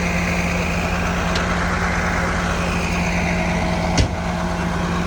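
Heavy farm engine running steadily, with one sharp knock about four seconds in.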